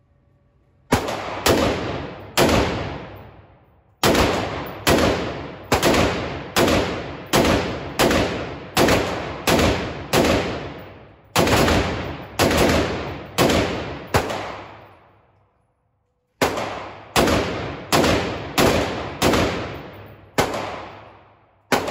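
5.56 rifle fired in steady semi-automatic strings of close to thirty shots, a little under two shots a second. Each shot rings out briefly and dies away. There are short breaks a few seconds in and about fifteen seconds in.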